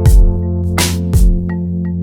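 Electronic background music: held synth chords over a steady beat, with a deep kick drum and bright snare-like hits.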